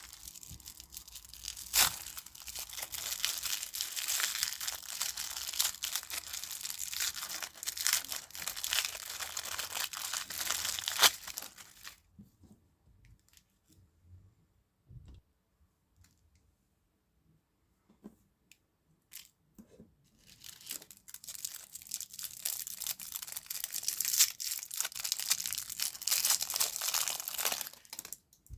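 Plastic candy wrappers being crinkled and torn open, a dense crackling that stops about twelve seconds in, gives way to scattered small clicks and taps, and starts again about eight seconds later.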